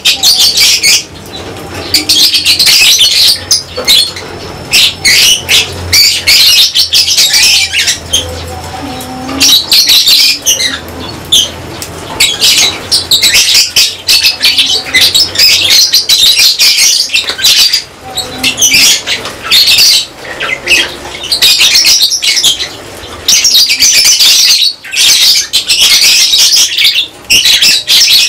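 A colony of lovebirds chattering and screeching loudly and continuously in shrill, rapid bursts, with wing flaps among them.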